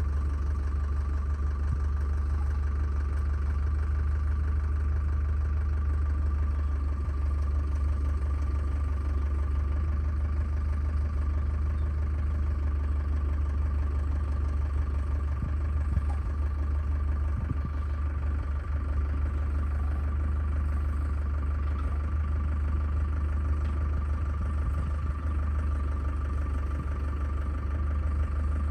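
An engine idling steadily: a deep, even drone with a thin constant whine above it.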